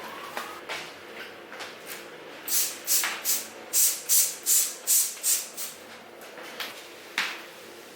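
Kitchen cleaning: a quick run of about ten short hissing strokes, about three a second, with lighter scattered rubs before them and one sharper stroke near the end.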